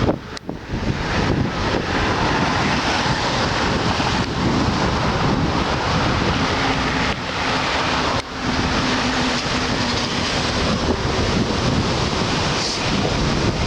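Wind buffeting the microphone of a moving car, with road and engine noise underneath. The noise is steady and loud, dipping briefly just after the start and again about eight seconds in.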